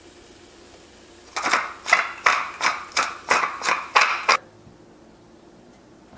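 Close-up crunching of food being chewed: a quick run of about nine crisp crunches, roughly three a second, for about three seconds.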